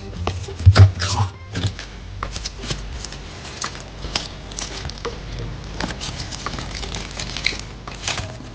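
Slime being squeezed and poked by hand, giving a run of irregular sticky clicks and crackles, with a couple of heavier squelches about a second in.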